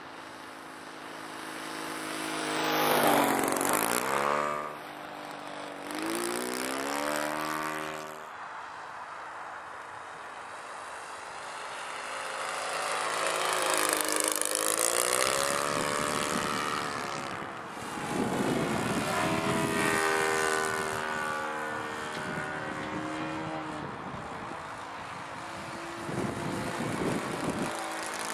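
SC 91 four-stroke glow engine of a Tucano RC model plane, swinging a three-blade propeller, running in flight over several passes. Its pitch rises and falls as it comes close and moves away, loudest about three seconds in and again around fifteen and twenty seconds in.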